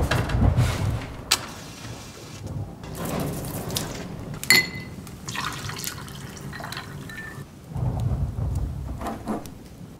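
Thunder rumbling with rain: a deep rumble at the start and another near the end. Around the middle there is a sharp ringing clink, like a glass being set down, among drips and small knocks.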